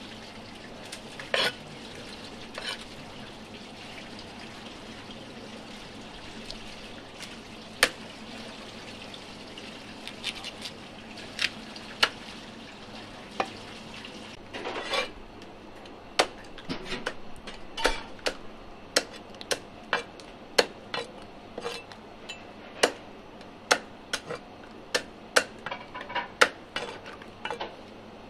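A cleaver and knife knocking on a wooden chopping block while giant river prawns are cut. There are a few scattered sharp knocks at first and a short scrape about halfway through, then knocks come about twice a second. A steady background noise runs underneath.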